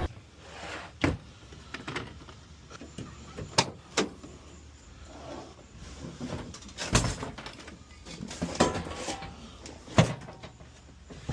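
Irregular knocks and clunks, about a dozen, spread unevenly over several seconds above a faint hiss.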